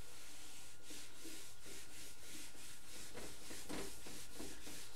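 Chalkboard duster scrubbing chalk off a blackboard in quick back-and-forth strokes, about three a second, a repeated dry rasping wipe.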